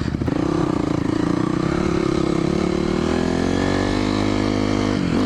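Dirt bike engine running under way on a trail, its pitch climbing steadily from about three seconds in as it accelerates, then dipping briefly near the end.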